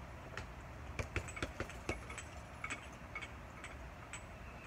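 Sharp knocks and clinks of strikes landing on a freestanding martial-arts training dummy: a quick cluster of about six between one and two seconds in, then scattered single hits, over a faint low rumble.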